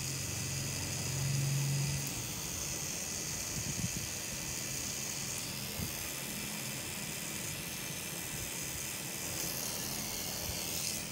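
Cartridge tattoo machine running with a steady motor hum, louder for the first two seconds, while yellow ink is packed into the skin. A short wiping sound near the end as a paper towel is drawn across the tattooed skin.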